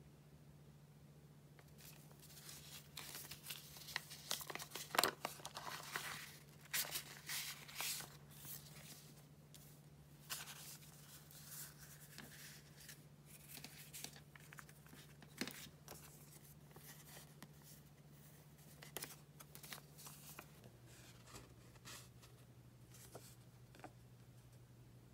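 A paper envelope being torn open in a run of rasping rips, then paper cards and a plastic sleeve of stickers rustling and crinkling as they are handled. A low steady hum lies underneath and drops in pitch near the end.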